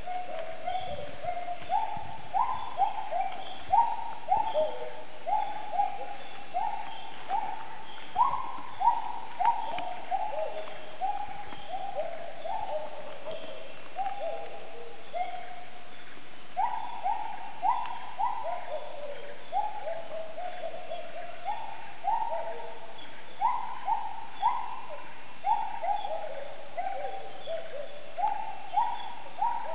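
Bornean gibbons calling from the canopy: a long series of hooting notes, each sweeping quickly up and sliding back down, with the notes of more than one animal overlapping. The calling pauses briefly about halfway through, then resumes.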